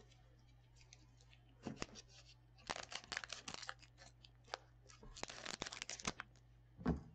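Foil wrapper of a 2020 Panini Prizm card pack crinkling and tearing as it is ripped open by hand, in three crackly bursts. A single thump near the end.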